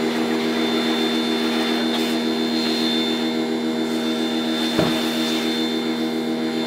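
Pressure washer running steadily, its motor and pump giving a constant hum with a high whine, and the jet spraying water onto a car. A brief knock sounds about five seconds in.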